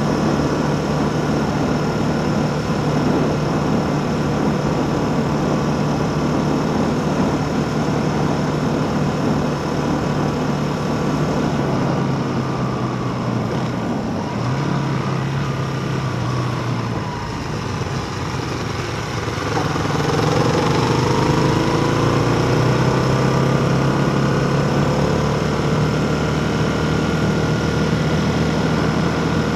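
Motor vehicle engine running steadily at road speed over wind and road noise. Its pitch shifts a little about halfway through, and some whining tones rise and fall a couple of seconds later.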